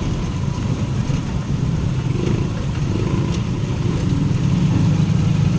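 Steady low rumble of a running motor vehicle.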